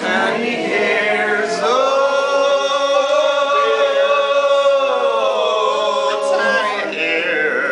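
Live acoustic band music: voices singing one long held note that slides down in pitch near the end.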